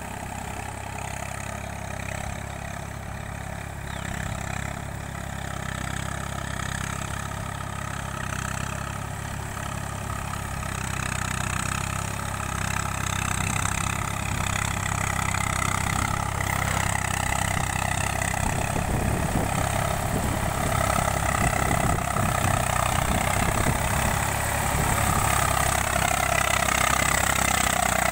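Eicher 485 tractor's three-cylinder diesel engine running steadily under work, growing steadily louder.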